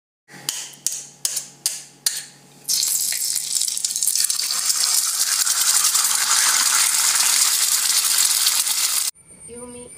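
Logo-animation sound effects: a run of about six sharp ticks with short ringing tails, roughly two a second, then a loud, steady hissing shimmer that cuts off suddenly about a second before the end.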